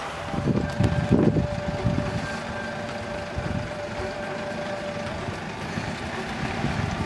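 Sprinter-based Hymer motorhome driving on an off-road course, its engine surging loudly in the first two seconds and then running steadily, with wind buffeting the microphone.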